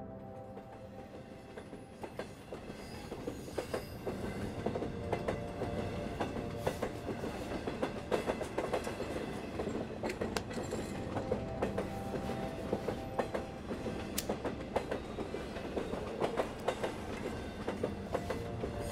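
A steady rumble with many irregular sharp clicks and clacks, building up over the first few seconds and then holding.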